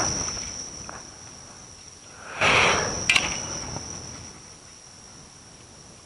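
Evening insects calling in one steady high trill. About two and a half seconds in comes a short rough scrape with a sharp click, from digging in grassy soil.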